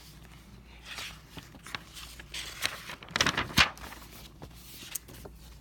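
Faint rustling and scattered clicks of handling noise, with a denser cluster about three seconds in.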